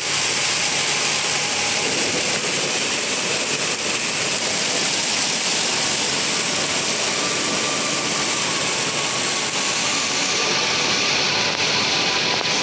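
Steady hiss of a vehicle driving in rain: wet road noise and rain, with engine noise underneath, unbroken and even in level.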